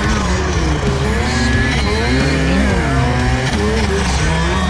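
Turbocharged snowmobile engine under hard load, revving up and down repeatedly while climbing a steep snow chute.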